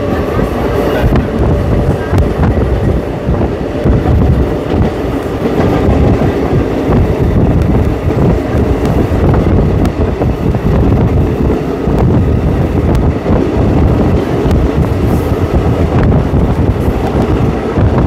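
DMU (diesel multiple unit) train running at a good speed, heard from on board: a loud, steady rumble of wheels on the rails.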